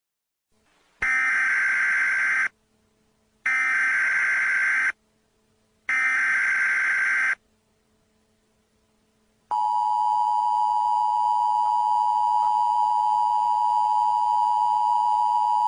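Emergency Alert System SAME header: three short bursts of screechy digital data tones, each about a second and a half long, with short gaps between them. About nine and a half seconds in, the steady two-tone EAS attention signal starts, announcing the alert message that follows.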